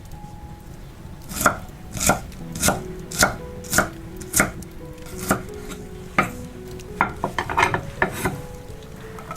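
Knife chopping on a cutting board: a slow, even stroke about every half second for six strokes, then a few quicker, irregular cuts.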